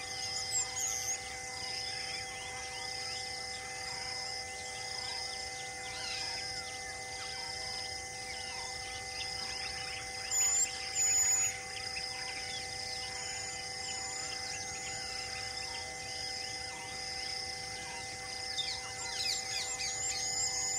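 Forest ambience: many birds chirping and calling, with two louder, sharp bird calls about ten seconds in and a burst of rapid chirps near the end. Underneath run a high pulsing tone about once a second and steady droning tones.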